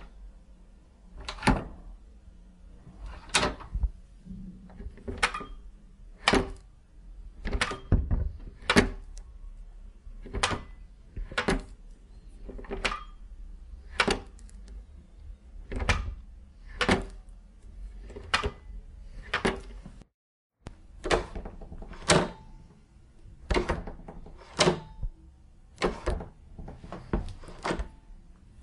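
Door handles being turned and let go again and again, each one giving a sharp metallic latch click with a short small-room echo, about one a second, with a brief break about two-thirds through.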